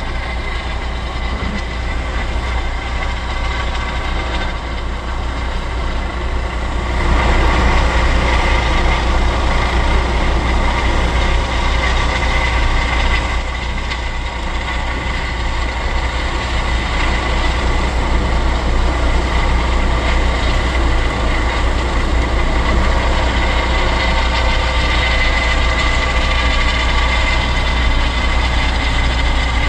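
Helicopter running close by, a steady high whine over a low rumble, getting louder about seven seconds in.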